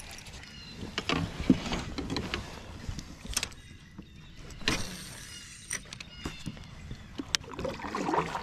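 Irregular clicks and knocks of fishing gear being handled aboard a plastic fishing kayak: a rod and reel, and a measuring board moved against the hull. There is a brief rushing sound a little before halfway.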